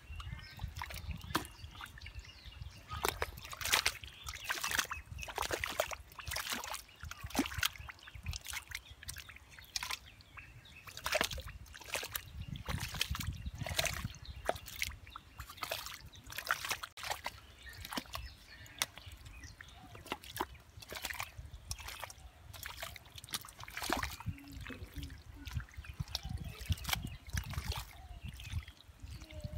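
Hands and a metal bowl splashing and sloshing in shallow, muddy water as the mud is groped and scooped for fish: many short, irregular splashes.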